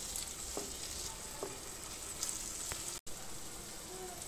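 Thick masala of hilsa roe bhuna sizzling in oil in a non-stick wok over a gas flame, with a few short scrapes and taps of a spatula against the pan.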